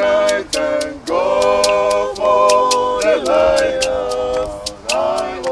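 A group of voices singing a hymn without instruments, over a steady beat of sharp taps, about three a second.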